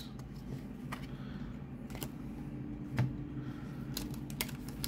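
Pokémon trading cards handled and laid down onto stacks: a scattering of light, separate clicks and taps of card against card.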